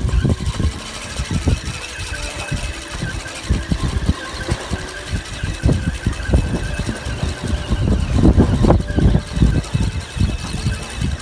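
Shimano Spin Joy 30 surf spinning reel being cranked right by the microphone as line is reeled in: its gears and handle rattle with many small, uneven knocks, heaviest about eight seconds in.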